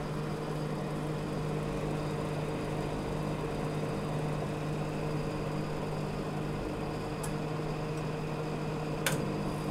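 Manual-dial microwave oven running, a steady even hum from the oven as it heats a cup of milk on the rotating turntable. A few light ticks come late on, then a sharper click near the end.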